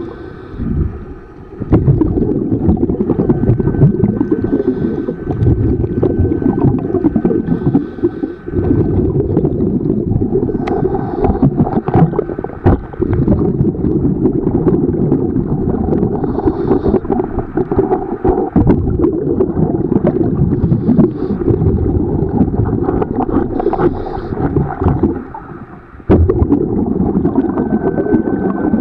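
Scuba diver breathing through a regulator, heard underwater through a camera housing. A short hiss comes with each inhale every few seconds, over a dense rumble of exhaled bubbles.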